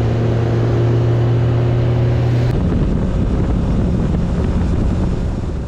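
Bass boat's outboard motor running at speed, a steady low engine tone under heavy wind buffeting on the microphone and rushing water. About two and a half seconds in the sound changes abruptly, the clear engine tone giving way to rougher wind and water noise.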